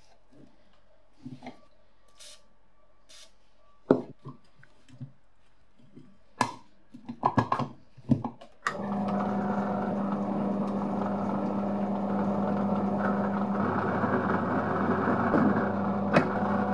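Light metal clicks and several sharp knocks as a rusted cast-iron clothes iron is worked apart with an Allen key and its parts are handled. Then, about nine seconds in, a drill press with a rotary burr in its chuck cuts in suddenly, its motor running with a steady hum.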